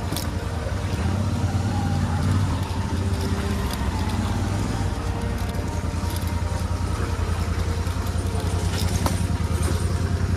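Motorcycle engine running steadily at low speed with a fast, even beat from the exhaust. A few sharp knocks come through, near the start and again about nine seconds in.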